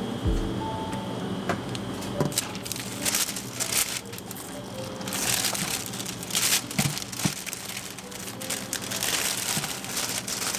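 Thin clear plastic bag rustling and crinkling as it is handled, in irregular bursts, over soft background music.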